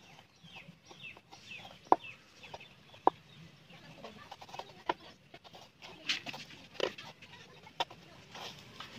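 Tip of a small kitchen knife clicking and scraping on a steel plate while carving a slice of raw green banana, with a few sharp clicks, the loudest about two and three seconds in. Faint bird calls in the background.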